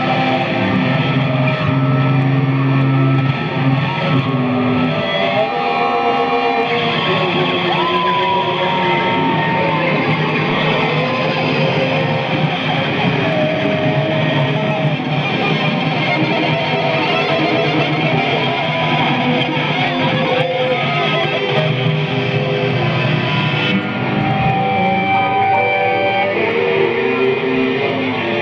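Live experimental noise music: a dense, continuous wall of sound made of many held, droning tones layered over one another, with occasional sliding pitches and shifts in texture.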